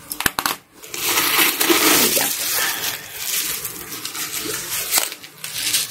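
Crinkly clear plastic packing stuffing rustling and crackling as it is handled and pulled out of a nylon bag, with a few sharp clicks near the start.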